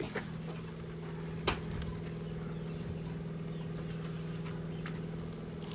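A steady low hum of a running motor, with one sharp knock about one and a half seconds in.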